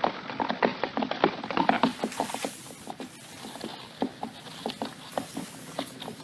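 Hooves of laden pack animals walking on hard ground, a quick irregular clip-clop. About two seconds in it thins to fainter, scattered knocks.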